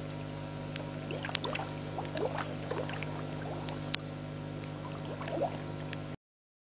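Frogs calling at a pond at night: short rising calls and high pulsed trills repeating about once a second, over a steady hum, with a few sharp clicks. All sound cuts off suddenly about six seconds in.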